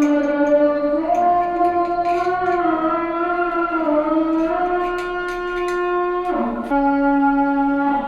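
Background music: a slow melody of long held notes that step up and down in pitch, with a brief break and a lower held note near the end.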